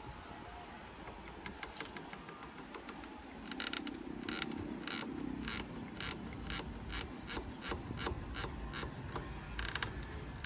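Royal Enfield Bullet 350 clutch lever squeezed and released over and over, its cable rasping and clicking at each stroke. The clicks run at about three a second from a few seconds in. This is friction in a poorly lubricated clutch cable, which the rider blames for the cable's wires snapping.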